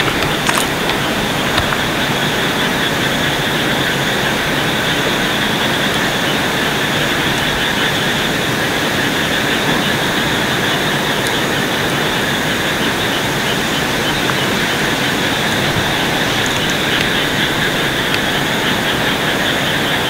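Steady outdoor background hiss, even and unchanging, with a few faint ticks.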